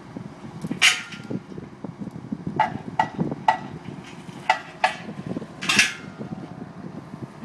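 Metal boat stands clinking as they are handled: a run of sharp metal clinks, with two louder hissing scrapes, one about a second in and one near six seconds, over a low steady rumble.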